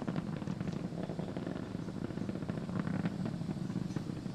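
Falcon 9 first-stage rocket engines, nine Merlins, throttled down through the period of maximum dynamic pressure: a steady rumble with continuous crackling.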